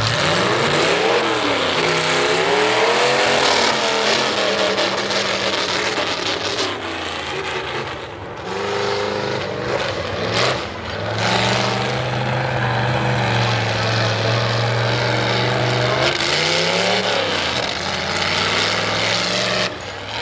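Square-body Chevrolet mega mud truck's engine running hard under load. Its pitch climbs and drops again and again as the truck shifts through its gears.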